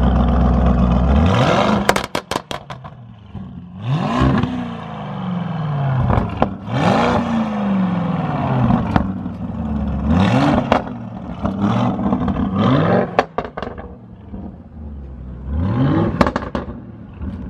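Lamborghini Urus twin-turbo V8 idling, then revved in a series of short throttle blips, each rising and falling back to idle, with pops and crackles from the exhaust as the revs drop. The owners put these pops down to the car's engine tune.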